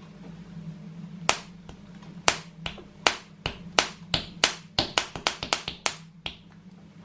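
Sharp plastic clicks and snaps from a surprise-egg capsule and its toy being handled and opened, about fifteen in all, starting about a second in and coming faster near the middle.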